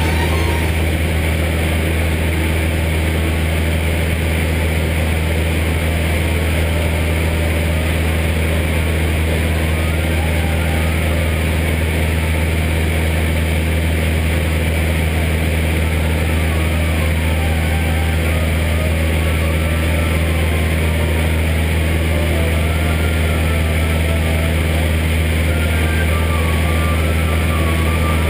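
Cessna 172's piston engine and propeller droning steadily at constant power, heard from inside the cockpit.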